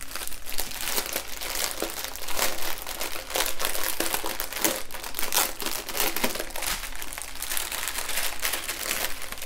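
Clear plastic wrapping crinkling and rustling continuously as it is pulled off a bundle of bagged diamond-painting drills.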